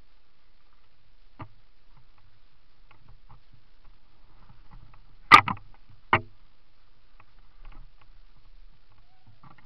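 Mountain bike jolting over a rough forest trail: scattered sharp knocks and rattles from the bike. The loudest is a double knock about five seconds in, with another a moment later.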